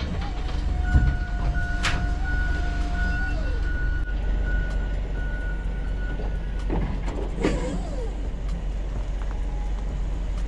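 Toyota forklift running with a steady low engine hum, a held whine that slides down in pitch about three seconds in, and a high beep sounding on and off, as it sets a pallet of drums into a cargo van. A sharp knock about two seconds in.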